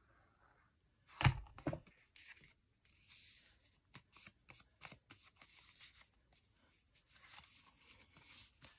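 Paper being handled and cut to make a thumb notch in a booklet page: a sharp knock about a second in, then repeated rustling and scratching of paper with small clicks.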